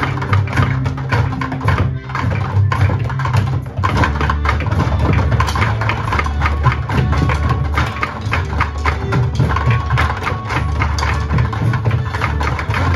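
A class of children drumming in unison with drumsticks on upturned plastic buckets, quick rhythmic stick strikes, played along to recorded music with a bass line.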